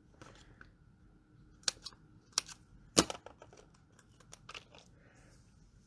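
Scissors snipping paper: a few scattered sharp snips, the loudest about three seconds in.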